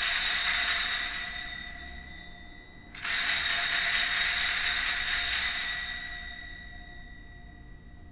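Altar bells shaken at the elevation of the consecrated host: a ringing peal dying away over the first couple of seconds, then a second peal about three seconds in that fades out a few seconds later.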